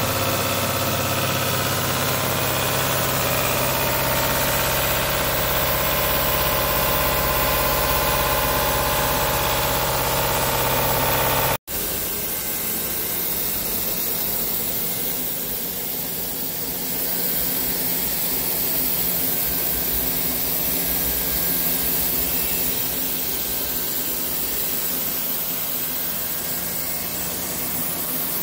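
CNC vertical turning lathe running steadily with a hum and a machine whine. About twelve seconds in, the sound breaks off for an instant and resumes with a different, less bassy running sound.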